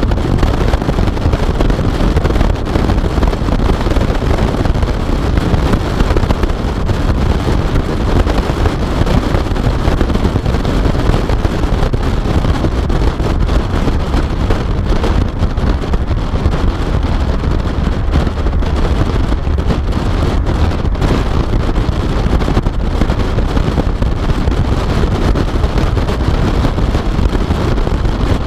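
A car driving at speed, heard through a GoPro mounted on the outside of the car: wind rushing over the microphone and road noise make a steady, loud rumble with no distinct engine note.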